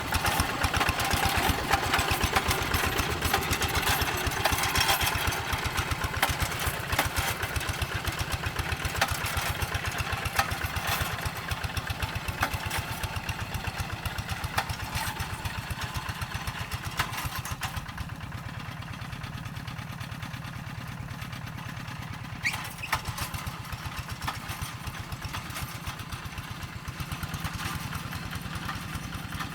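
Single-cylinder diesel engine of a walk-behind hand tractor ploughing a rice paddy, running steadily with a fast, even chugging beat. It drops noticeably in loudness a little over halfway through.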